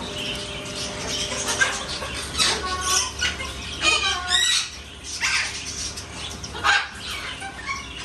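African grey parrot squawking and whistling: a string of short, separate calls, with a whistled glide about four seconds in.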